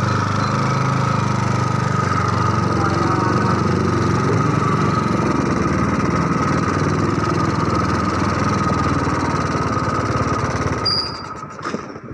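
Small motorcycle engine running steadily under way, easing off about a second before the end.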